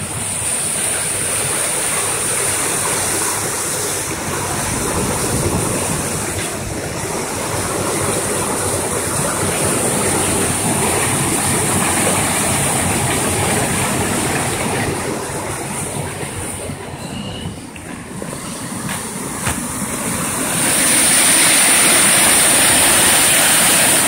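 Waterfall swollen with snow melt at full flow, a loud steady rush of falling water. It dips briefly past the middle, then grows louder near the end.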